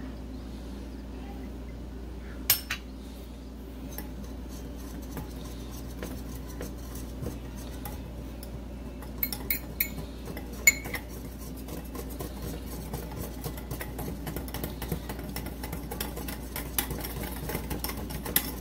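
Wire whisk beating milk into powdered cheese in a bowl, its wires ticking rapidly against the bowl for the second half, over a steady low hum. Before that come a few sharp clinks of metal utensils on the bowl: one pair early, then a cluster in the middle.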